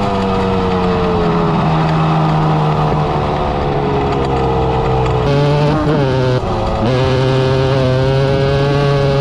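Two-stroke 250 cc quad engine running under way at a steady throttle, its pitch sagging slowly, then changing quickly a few times about five to seven seconds in as the throttle is blipped or a gear is shifted.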